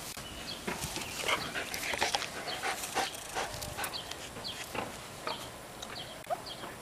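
A dog panting lightly amid a steady scatter of short clicks and scrapes.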